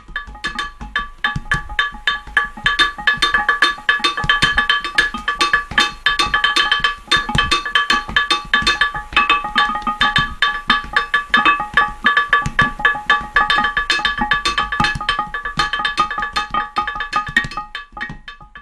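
Stones struck rapidly and repeatedly as a percussion instrument, each strike ringing with a few steady pitches. The playing stops near the end.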